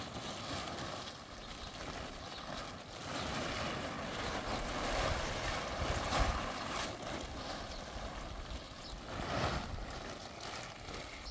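Wind gusting on the microphone: an uneven rushing noise that swells and eases over a few seconds.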